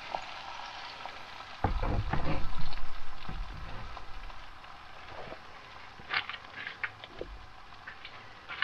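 Egg frying in a small cast iron frying pan on a portable gas burner, a steady sizzle. A louder low rumble comes about two seconds in, and a few light clicks come around six seconds in.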